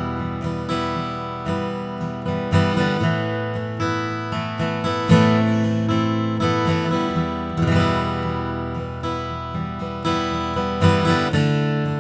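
Martin D-18 Modern Deluxe dreadnought acoustic guitar, torrefied spruce top with mahogany back and sides, strummed in ringing chords. Strokes come at an uneven rhythm, each chord left to ring and fade.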